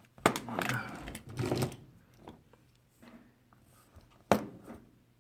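Vintage pocket knife being handled, its blades and tools clicking as they are opened and closed, with a sharp snap about four seconds in as a blade's backspring closes it.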